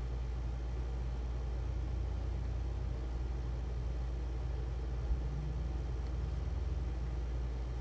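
Steady low hum of background noise with no distinct sounds; the soldering itself is not heard.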